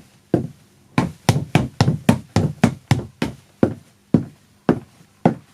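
Foley footsteps on a wooden floor: steps knocking on the boards about two a second, quickening to a brisk three or four a second about a second in, then slowing again.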